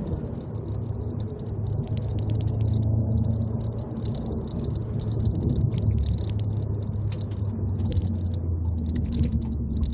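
2015 Volkswagen Golf GTI's 2.0 TSI turbocharged four-cylinder engine running under way, heard from inside the cabin, as a steady drone that drops in pitch about six seconds in. A light rattling of many fast clicks runs over it.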